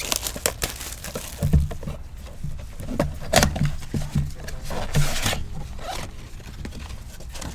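A sealed box of trading cards being opened by hand: plastic wrap crinkling and tearing, cardboard rustling and scraping, with several sharp knocks as the box is handled and the packs come out.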